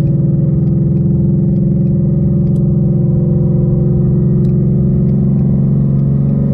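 2019 Ford Mustang's engine and exhaust droning steadily while accelerating onto and cruising on the highway, with road noise underneath.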